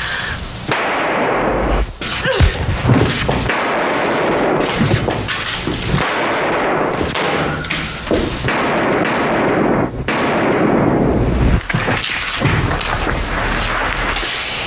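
Gunfire in a film shootout: a long run of rapid pistol shots in volleys, broken by a few brief pauses.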